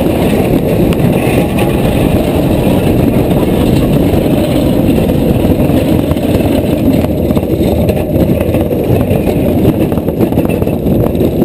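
Wheeled summer bobsled running fast down a bare concrete track: a loud, steady rumble of the wheels and rushing air, heard from a helmet-mounted camera.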